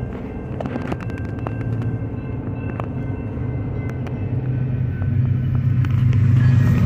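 Steady low engine drone heard from inside a car, swelling over the last two seconds as an approaching train draws near, with scattered light clicks.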